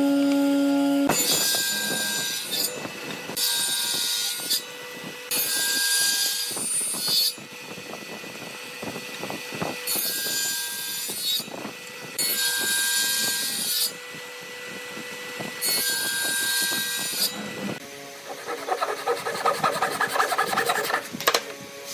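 A machine motor hum stops about a second in. A table saw then runs and makes about six cuts of a second or two each into a wooden board held upright in a jig, the kind of cut used for tenons. Near the end a Japanese-style hand saw makes fast strokes through a pine strip.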